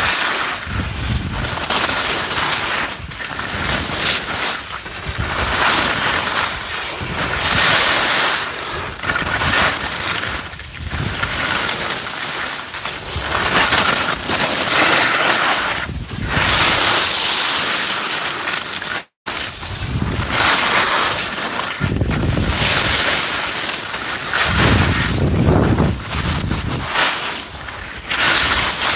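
Wind rushing over the microphone and skis hissing and scraping on packed snow during a fast downhill ski run, rising and falling in surges. The sound cuts out for an instant about nineteen seconds in.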